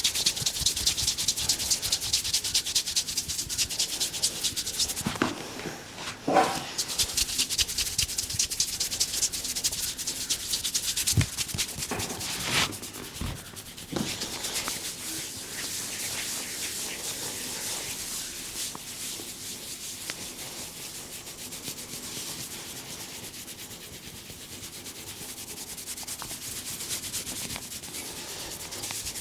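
Hands rubbing briskly over hair and scalp in a head massage: fast, even strokes, many a second, louder in the first few seconds and gentler later. A few sharper knocks or pats fall in the first half.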